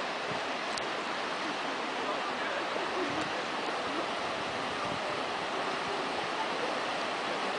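Flash-flood water rushing down a rocky gorge: a steady, even rush of churning water.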